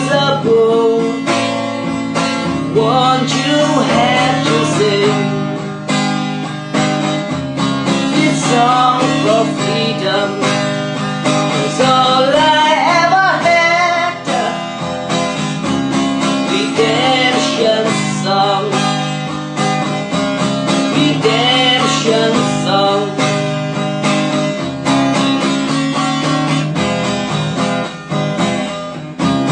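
Music: a strummed acoustic guitar, with a wavering melody line rising and falling over it.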